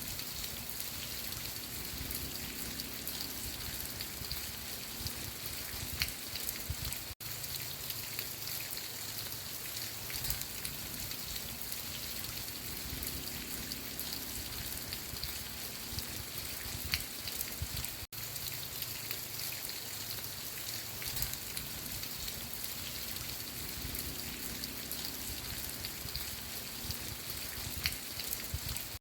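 Steady rain falling, with scattered individual drops ticking a little louder than the rest. The sound cuts out for an instant twice.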